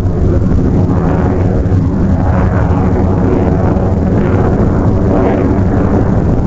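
F-16 fighter jet flying past, its jet engine a loud, steady rumble.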